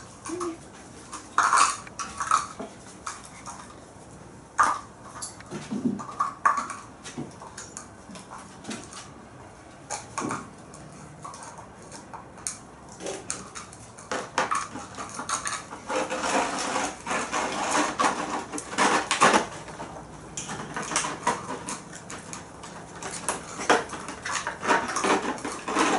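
Month-old puppies knocking and pushing small bowls and plastic cups about on a concrete floor: a run of clinks, knocks and scrapes, scattered at first and busier in the second half.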